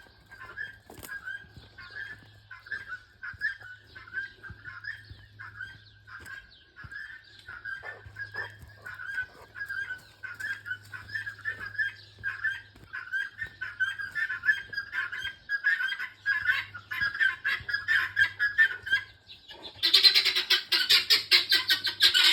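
Farm poultry calling in a steady run of short, high, repeated calls that grow louder. About twenty seconds in comes a much louder burst of rapid squawking.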